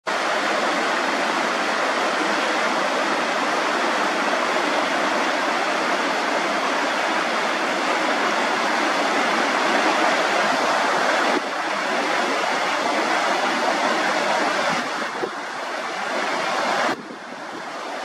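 Fast-flowing stream rushing over rocks and down a small waterfall: steady white-water noise. Its level drops abruptly about two-thirds of the way through and again near the end.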